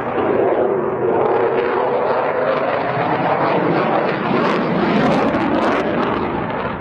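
Jet noise from a Eurofighter Typhoon's twin EJ200 turbofan engines as it flies overhead, a loud steady rush with a tone that falls slightly, and short crackles in the second half.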